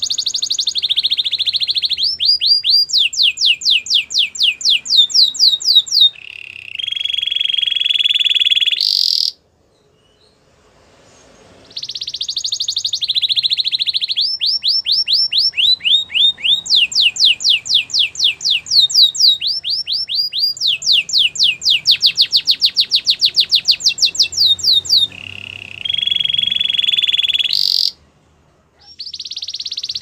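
A domestic canary singing two long song phrases with a short pause between them: buzzy rolls and rapid trills of falling whistled notes, the fastest trill near the end of the second phrase, each phrase closing on a lower, steady note.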